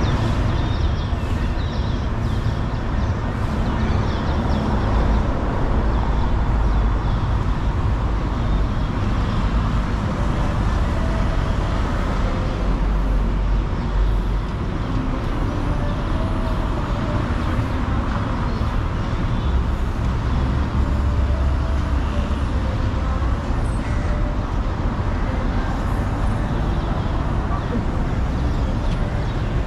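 City street traffic: a steady wash of road noise with engines passing, louder a few seconds in and again past the middle, and people's voices faintly in the mix.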